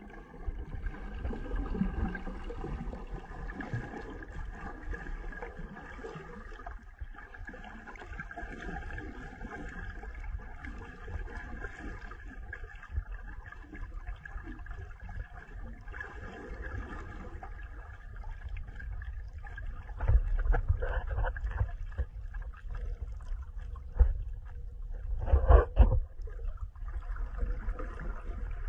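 Underwater ambience: water sloshing and gurgling around the camera, with a steady low rumble and several louder low thumps in the last third.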